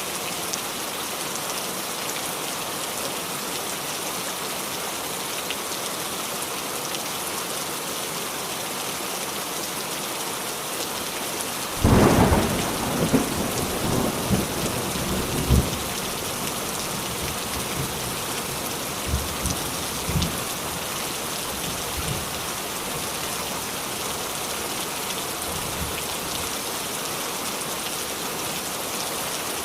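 Heavy rain falling steadily. A sudden clap of thunder about twelve seconds in rumbles on for a few seconds, with a few fainter rumbles after it.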